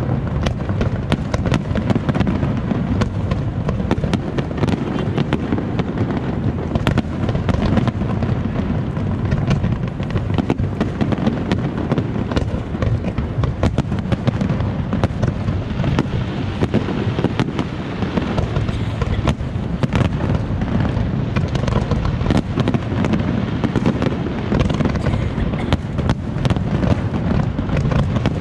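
Large fireworks display: aerial shells bursting in rapid, overlapping succession, with dense crackling and a constant low booming throughout.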